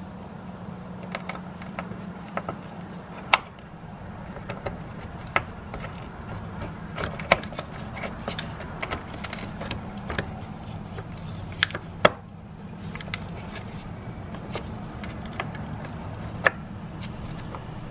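A screwdriver prying the steel spring clamp off the end of an Edelmann Elite power steering filter housing: scattered small metallic clicks and scrapes, with two sharper snaps, one early and one past the middle, over a steady low hum.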